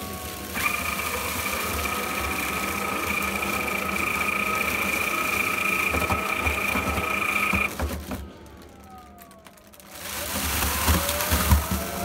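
Dry flush toilet's electric motor running after the flush button is pressed, twisting the foil-lined bag shut and pulling it down to seal the waste. It is a steady whine for about seven seconds and stops. About ten seconds in, another whine starts and rises in pitch.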